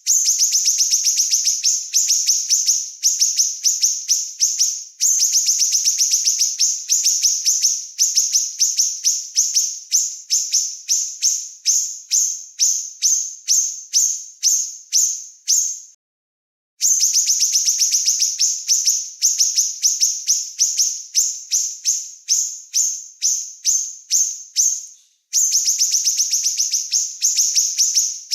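Small songbird singing rapid, high-pitched chattering trills in long phrases of quickly repeated notes, with short breaks between phrases and one brief full silence about two-thirds of the way through.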